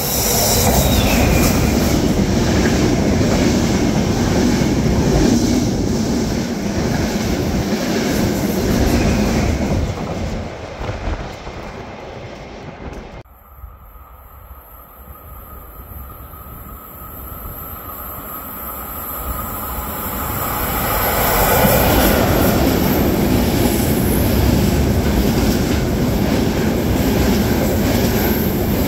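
Passenger trains running through a station: a locomotive-hauled train passes close and fades, and the sound cuts off abruptly about a third of the way in. A second train of intercity coaches then approaches and rushes past with heavy wheel-on-rail noise.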